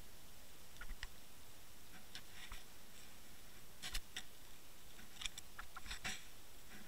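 Irregular faint clicks and ticks over a steady hiss, heard underwater through a Water Wolf fishing-line camera moving over a sandy seabed. A quick run of clicks comes near the end, as the camera drags on the bottom and stirs up sand.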